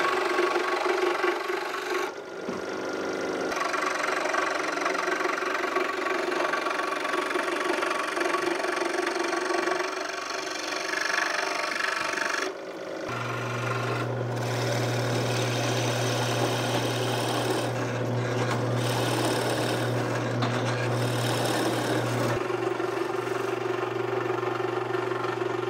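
A scroll saw running and cutting wood. About halfway through, the sound changes to the steady hum of a Delta ShopMaster drill press motor as its bit bores into a wooden board.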